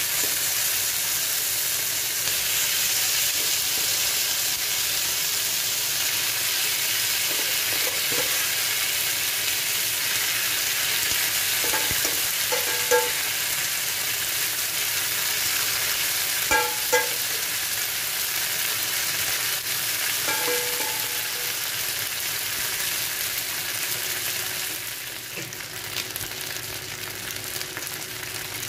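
Beef and chicken satay sizzling on a hot cast-iron sizzler platter: a steady, hissing sizzle with a few brief clinks around the middle, easing slightly near the end.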